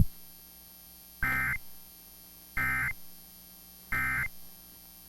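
Emergency Alert System end-of-message data bursts: three short, identical bursts of warbling two-tone SAME data, about 1.3 s apart, marking the end of the weekly test message.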